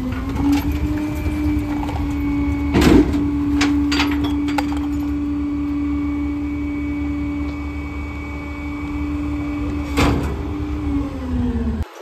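Rear-loader garbage truck running a packer-blade compaction cycle: the engine revs up just after the start and holds a steady pitch while the hydraulics drive the blade, then the revs drop near the end. A loud metallic clunk comes about three seconds in and another about ten seconds in.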